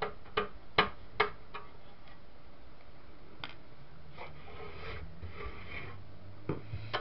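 Hands working on a small HDTV switcher box to get its cover off: a run of sharp clicks about two or three a second at the start, a scraping rub in the middle, and two knocks near the end.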